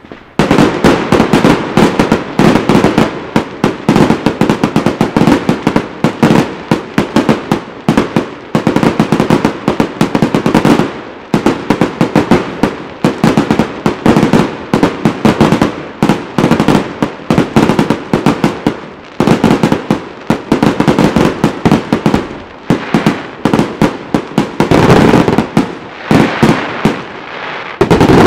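Aerial fireworks bursting in a rapid, near-continuous run of bangs, many a second. It starts suddenly about half a second in and eases off briefly a few times.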